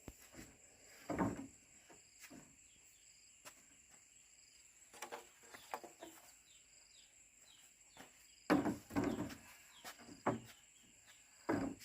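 Scattered knocks and scrapes, loudest in a cluster in the second half, over a steady high insect drone and short repeated bird chirps.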